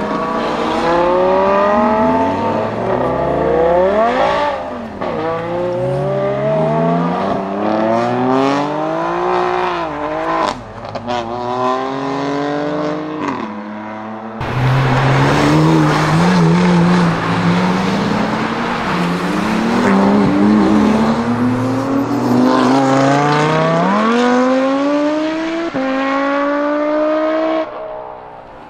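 Lamborghini Gallardo's V10 accelerating hard, its pitch climbing and dropping back with each quick upshift. After a cut about halfway through, other sports cars accelerate away the same way, rising through several gears.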